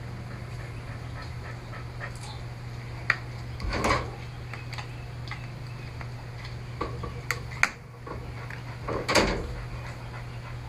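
Sharp plastic clicks and two longer scraping bursts as the back cover of a Samsung Galaxy Tab 4 tablet is pried at, over a steady low hum.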